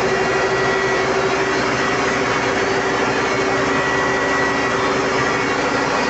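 Standby diesel generator running steadily under power: a loud, even engine drone with a steady tone in it.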